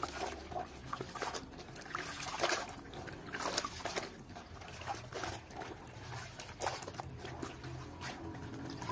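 Wet cloth being squeezed and kneaded by rubber-gloved hands in a basin of ferrous sulfate (tunjung) mordant solution: irregular squelching, trickling and sloshing of liquid, loudest about two and a half and three and a half seconds in.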